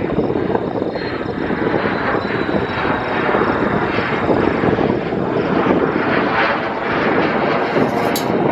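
Jet aircraft engine noise, a loud continuous rush, with a single sharp click near the end.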